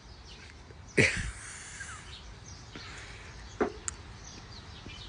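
Faint birds chirping in the background, with one sudden short loud sound about a second in and a smaller one a little past halfway.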